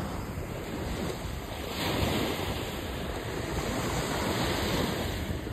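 Surf washing up the beach in a steady rush that swells about two seconds in, with wind buffeting the microphone.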